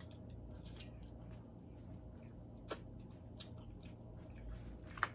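Faint clicks and crackles of red king crab shell being cracked and picked apart to get the meat out, with two sharper snaps, one in the middle and one near the end.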